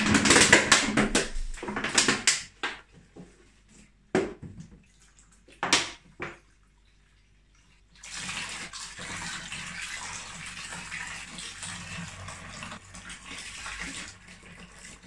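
Cooled beer wort being siphoned through a plastic tube into a plastic fermentation bucket. Several short, loud noises come in the first seven seconds as the siphon is started. From about eight seconds in there is a steady splashing stream as the wort falls into the bucket, aerating it for fermentation.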